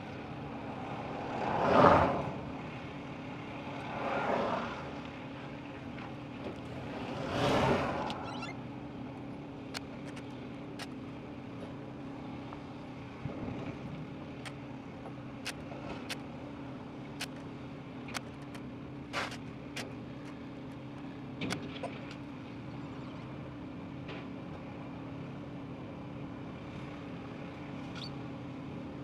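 Construction-site ambience: a steady low engine hum of heavy machinery, with three brief rushing swells of passing-vehicle noise in the first eight seconds, the first the loudest. Scattered sharp metallic knocks and clanks follow from the site work.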